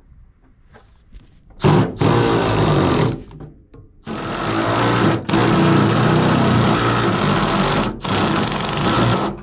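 Cordless drill spinning a socket on an extension to back out the deep-set nuts and bolts holding a fan coil unit's blower assembly. It runs in about five bursts, starting about a second and a half in, with brief pauses between them.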